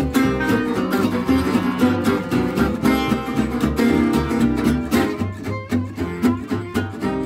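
Gypsy jazz played on Selmer-Maccaferri-style acoustic guitars: a lead line picked over an evenly strummed rhythm of chords.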